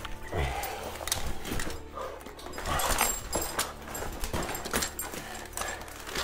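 A caver breathing hard while scrambling on rock to start a rope climb, with a string of knocks, scrapes and clicks from boots, hands and gear.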